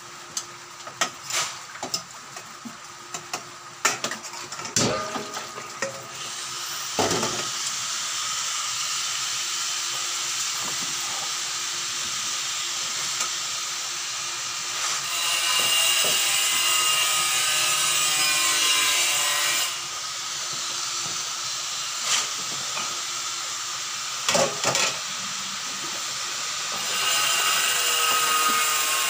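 A knife cutting through pork and knocking on a plastic cutting board in a stainless steel sink, a quick string of clicks and knocks. After about six seconds, water starts running steadily into the sink over the meat, louder in the middle and again near the end, with a couple of knocks in between.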